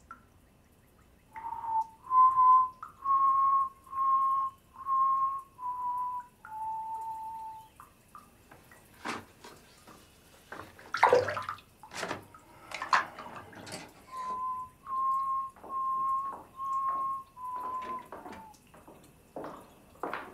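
A man whistling a slow tune in two phrases of short, nearly level notes. Between the phrases, around the middle, bath water splashes and sloshes a few times.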